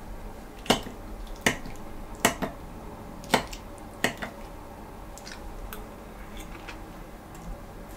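A metal fork clinking against a ceramic plate as vegetables are picked up: about six sharp clinks in the first half, then only a few faint ticks.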